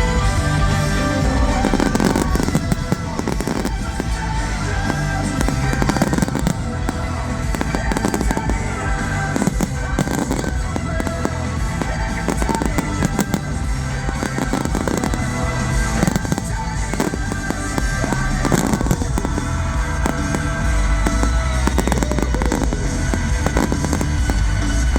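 Fireworks bursting and crackling in quick, irregular succession over a loud music soundtrack.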